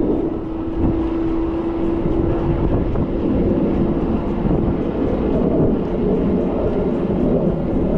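HeyBike CityRun electric bike ridden at about 18 mph on its highest pedal-assist level: wind rushing over the microphone, with a steady motor hum that wavers in pitch in the second half.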